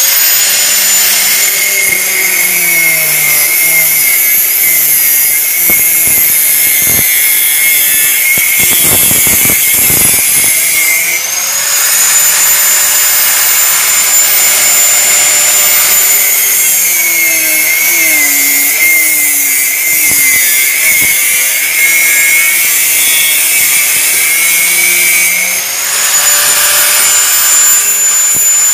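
Angle grinder with a cut-off disc cutting through steel angle iron: a loud high whine over the grinding hiss of the disc in the metal. About eleven seconds in the disc comes off the cut and the motor spins back up to a higher, steadier whine for a few seconds, then it bites into the steel again, and near the end it spins up free once more.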